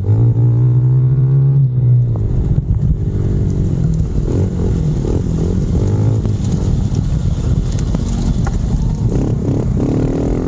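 Honda CRF110F pit bike's small single-cylinder four-stroke engine revving up and down as the rider works the throttle around the dirt track, climbing again near the end. Rough rumble from wind and the ride runs under the engine.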